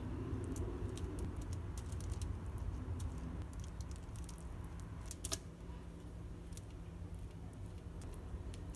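Light, scattered clicks and taps of food preparation, with a small cluster of clicks about five seconds in, over a steady low hum.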